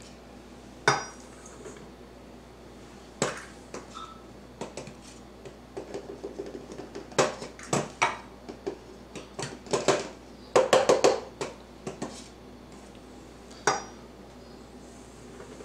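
Metal measuring cup clinking and knocking against a glass flour canister and a stainless steel stand-mixer bowl as flour is scooped and tipped in: scattered clinks, thickest in the second half.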